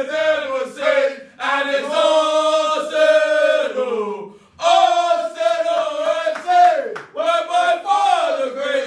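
A small group of men chanting and shouting together in celebration, long held calls in unison with a couple of short breaks for breath.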